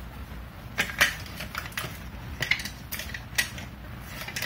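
Irregular plastic clicks and knocks as a hard hat suspension's plastic headband and tabs are handled and set inside a plastic dome, the loudest about a second in.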